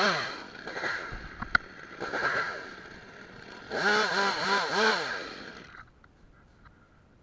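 Two-stroke Stihl chainsaw revved in repeated bursts, its pitch climbing and dropping with each throttle squeeze, with a sharp click about a second and a half in. The engine falls away about six seconds in.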